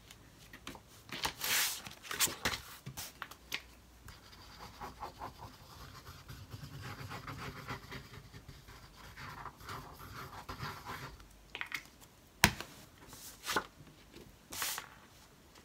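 Paper and card stock being handled on a cutting mat: scraping, sliding and rustling, with a stretch of faint rapid ticking while liquid glue is dabbed from a bottle onto the paper. One sharp knock late on.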